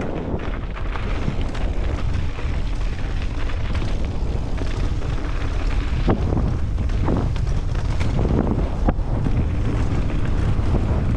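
Wind buffeting a helmet-mounted camera's microphone as a mountain bike rolls fast down a dirt trail, over the steady crunch and rattle of tyres on loose dirt and gravel. A few short knocks from the bike hitting bumps come in the second half.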